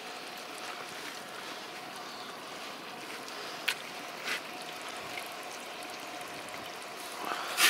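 Wood fire burning in a barrel stove under a cast-iron pot of hare meat frying in butter and pork fat: a steady hiss with a few sharp crackles, and a louder crack at the very end.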